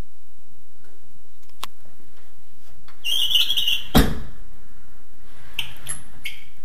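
Handling noises: a single click, then a short scraping squeak and one heavy thump about four seconds in, like a lid or door being moved and shut.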